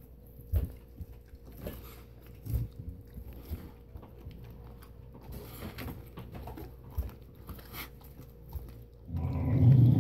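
Carolina Dog gnawing a partially frozen raw goat leg: scattered crunches and wet chewing clicks on meat and bone. About nine seconds in, a loud low dog growl starts and carries on.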